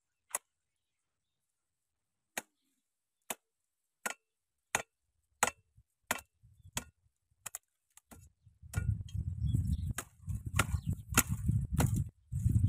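A machete hacking at woody brush stems: a string of sharp single chops, about one a second at first and then coming closer together. From about nine seconds in, a rough rustling of cut branches being handled joins the chops.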